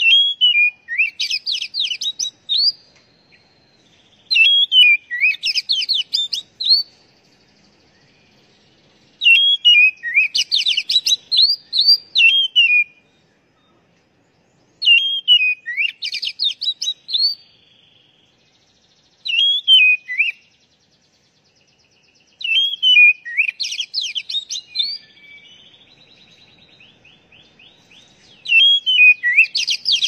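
Oriental magpie-robin (kacer) singing in full song: about seven phrases, each a slurred whistle followed by quick varied notes, with short pauses between them. A fainter twitter runs between the last two phrases.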